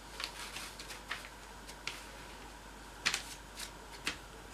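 Young cocker spaniel puppies scrabbling and shuffling about on fleece bedding and newspaper: irregular soft scratchy rustles, with a few louder ones about three and four seconds in.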